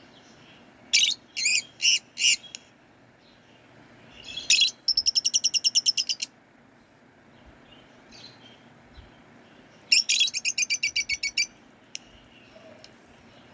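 Lovebirds chirping. Four loud, high-pitched chirps come about a second in. Then a rapid chattering run of about ten chirps a second, and a second such run near the end.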